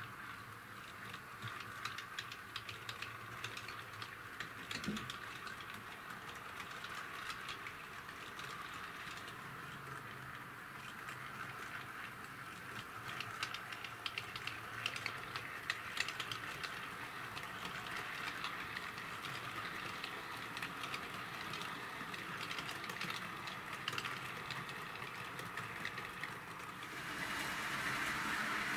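HO-scale model freight train of tank wagons behind a model electric locomotive, rolling along the track with a steady whirr and many small clicks of wheels over rail joints. The clicking is thickest midway as the train passes close by, and the sound grows louder near the end.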